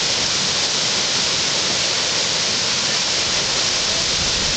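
Whitewater rapid rushing steadily: a standing wave of churning white water.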